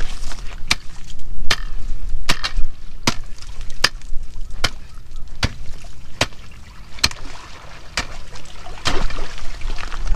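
Ice chisel (spud bar) striking lake ice again and again, a sharp blow a little more than once a second, chipping out a spear hole.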